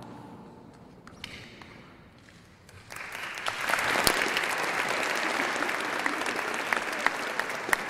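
A ceremonial music chord dies away, then, about three seconds in, audience applause breaks out and carries on, with sharp clicks scattered through it.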